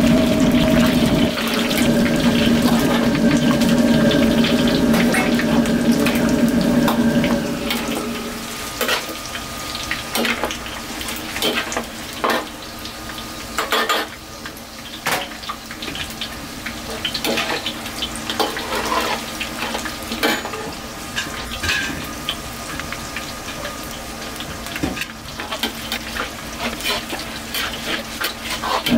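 Oil frying in a pan, a hiss full of scattered sharp pops and crackles. For the first several seconds a loud steady hum sits over it, then stops.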